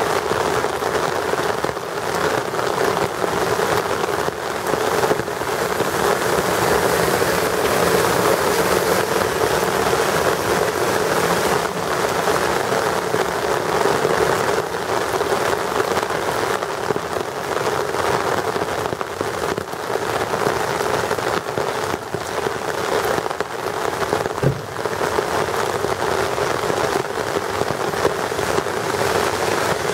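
Steady rain falling and splashing on a wet asphalt street and concrete sidewalk.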